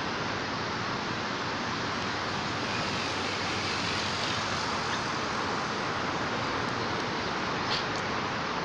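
Steady, even outdoor background hiss with no clear source, with a few faint clicks near the end.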